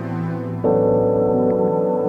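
Ambient electronic music of held keyboard chords; about half a second in, a new, louder chord comes in and sustains.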